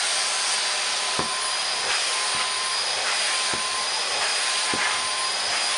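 Numatic Charles CVC370-2 canister vacuum cleaner with a 1000-watt motor running steadily, a rushing suction noise with a thin high whistle, while its floor tool is worked over carpet. Short low knocks come about once a second.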